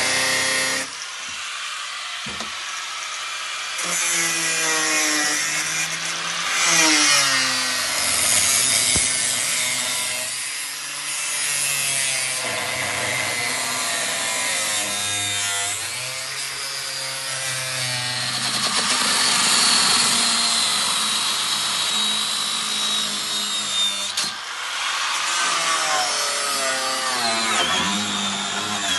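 Milwaukee cordless power tool cutting through the Land Rover's body metal, its motor speed rising and falling as it bites and eases off, with a high whine in the later part.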